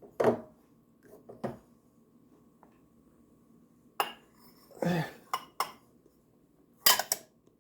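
A bowl knocking and clinking against other dishes as it is put back on a kitchen cupboard shelf. There are several separate knocks, the loudest near the start and near the end.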